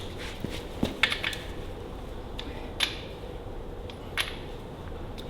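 A few sharp metallic clicks and clinks, spaced irregularly, from hand tools and parts being handled on the tractor, over a faint steady hum.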